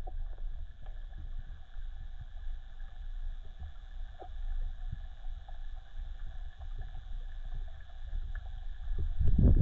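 Underwater ambience picked up by a camera in its housing: a steady low rumble of moving water with faint scattered clicks and a faint steady whine. A louder low rushing surge starts near the end.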